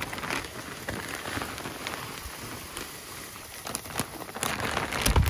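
Loose vermiculite insulation granules pouring from a large bag down a chimney flue: a steady hiss of granules with scattered light ticks. A couple of low thumps come near the end.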